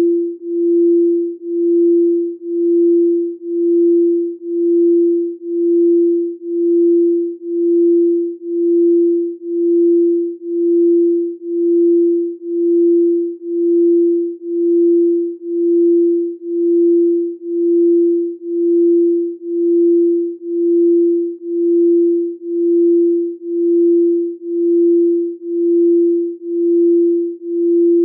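Pure electronic sine tone a little above 300 Hz, a chakra-tuning tone, pulsing steadily about once a second with no overtones.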